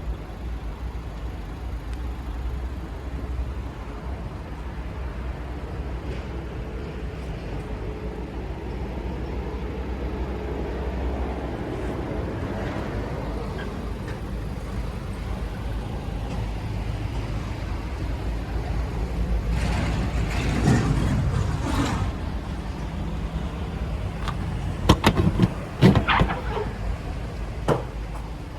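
Renault Master's 2.3-litre diesel engine idling steadily, the sound changing and swelling briefly past the middle, with a few sharp knocks near the end.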